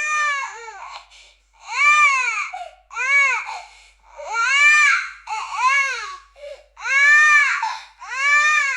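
Newborn baby screaming and crying in a run of about seven separate wails with short gasping gaps between them, each cry rising and then falling in pitch.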